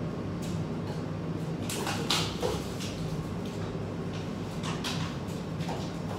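Laptop keyboard typing, irregular key clicks over a steady low café hum, with a louder clatter about two seconds in.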